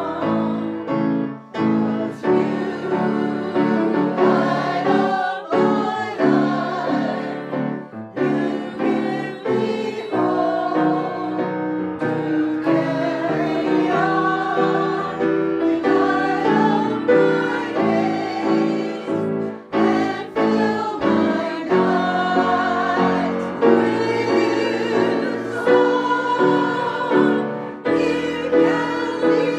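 A woman singing a slow ballad to her own grand piano accompaniment, with a small group of women's voices singing along.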